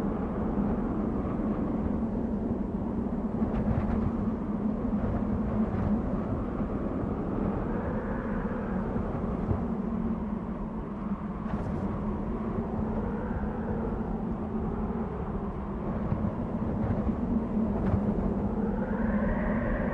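Desert wind blowing steadily with a low drone, its gusts making a whistle that rises and falls in pitch, swelling loudest near the end.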